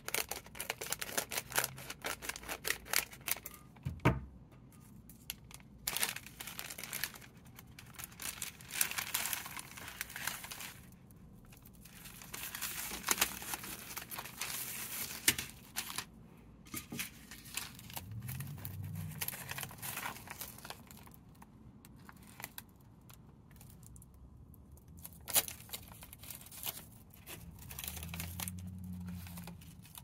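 A crinkly plastic nori package being snipped open with scissors and handled, with the crisp dried nori sheets pulled out of it. It is a run of crackling and crinkling, with many sharp clicks and a few short pauses.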